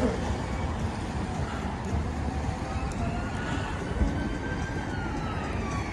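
Steady low rumble of wind and road traffic, with a faint ambulance siren from about two seconds in, its pitch slowly gliding up and then down.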